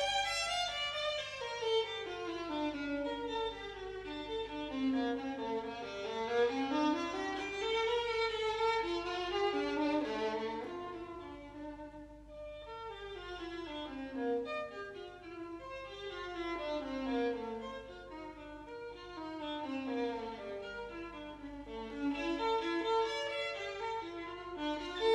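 Violin music playing a flowing melody, with a steady low mains hum underneath.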